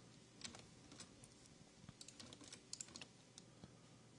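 Faint clicking of a computer keyboard and mouse: scattered light clicks, with a quick run of them about two to three seconds in, over a low steady hum.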